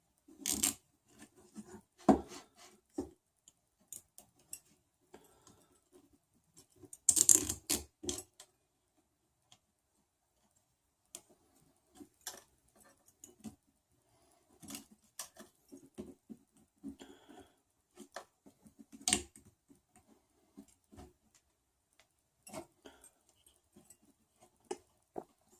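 Nylon zip ties being tightened by hand on 3D printer frame parts: scattered small plastic clicks and handling sounds, with a short burst of rapid clicks about seven seconds in and a sharp click near nineteen seconds.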